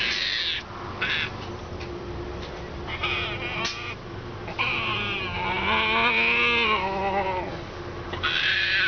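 Baby striped hyena's high-pitched, wavering cries in short bursts, the longest lasting about three seconds from roughly halfway in: the defensive calls of a scared pup.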